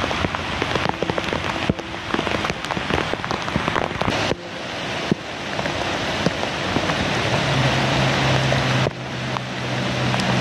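Heavy rain pattering hard on surfaces, a dense hiss full of individual drop hits. A low steady hum joins in about three-quarters of the way through.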